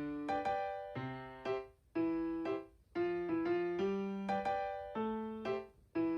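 Background music: a light keyboard tune played as short plucky notes in a repeating phrase, about one phrase a second.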